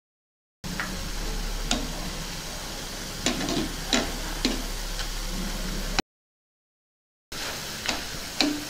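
Bottle gourd and gram flour pakodi deep-frying in hot oil, a steady sizzle with a few sharp clicks. The sound cuts out to dead silence twice.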